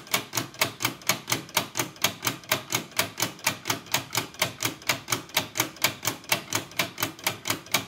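A 3D-printed plastic watch-escapement clock mechanism ticking steadily on its own: the escape wheel and pallet click in a rapid, even rhythm as the balance wheel swings back and forth.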